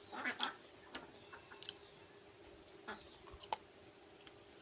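Close-up eating sounds of a man chewing rice and fried fish with his mouth open: irregular wet smacking and clicking, busiest and loudest about half a second in.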